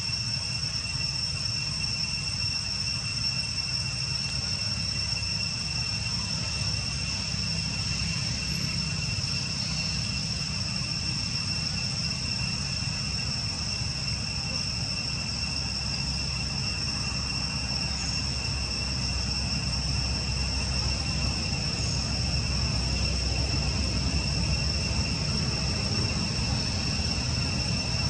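Insects droning: one steady, unbroken high-pitched whine with a fainter overtone above it, over a low rumble that gets a little louder in the second half.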